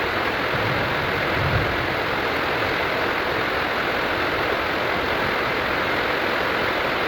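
Steady, even rushing noise with no pitch or rhythm, and a brief low thump about a second and a half in.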